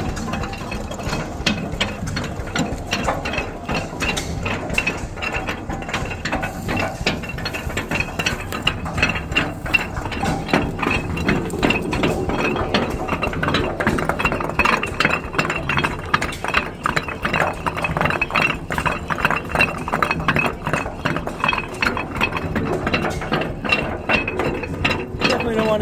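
Vintage machinery running at a steady pace: a dense, even clatter of metal clicks over a low steady hum.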